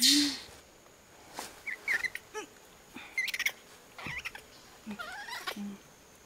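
Small monkey giving short, high squeaks and chirps, several in a row, with a few soft clicks among them.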